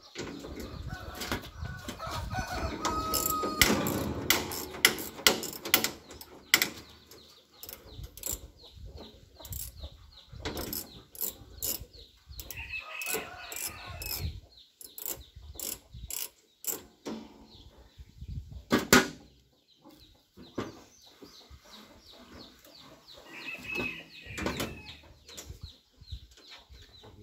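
Socket ratchet wrench clicking in quick runs as bolts are worked loose in an excavator's engine bay, with scattered metal clinks and one sharper knock past the middle. Chickens cluck now and then.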